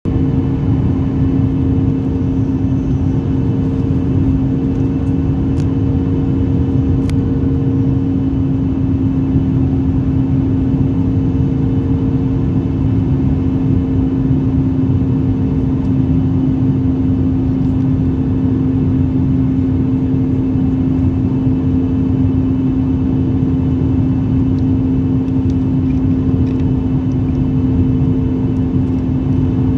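Cabin noise of a flydubai Boeing 737 airliner descending to land: a steady rumble of engines and airflow with a constant low drone.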